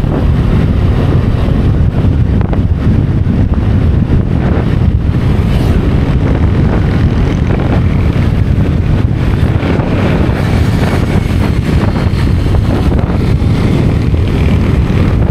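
Steady wind buffeting on the microphone of a motor scooter moving at road speed, a heavy low rumble with the ride noise of the scooter beneath it.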